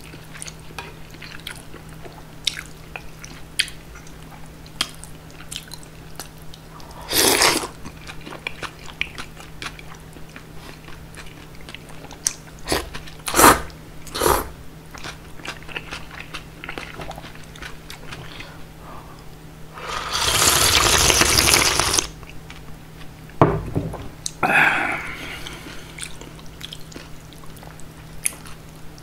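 Close-miked eating of cold bean-soup noodles (kongguksu): soft chewing and wet mouth clicks throughout, broken by short slurps of noodles and one long slurp of about two seconds past the middle.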